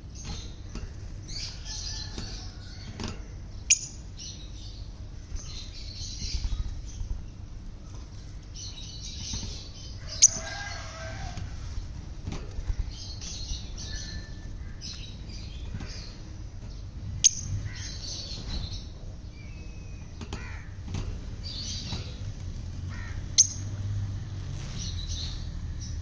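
Rosy-faced lovebirds chirping in short, high clusters, over a steady low rumble. Four sharp clicks, spread a few seconds apart, are the loudest sounds.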